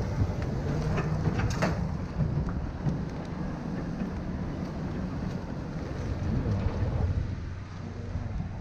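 Steady low rumbling noise, with a few sharp clicks about one and a half seconds in.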